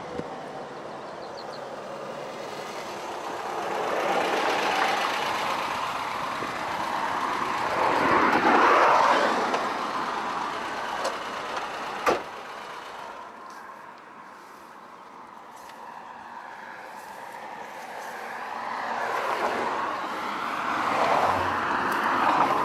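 Cars passing on a road: swells of engine and tyre noise that rise and fade, the loudest about eight seconds in and another near the end. A single sharp click about twelve seconds in.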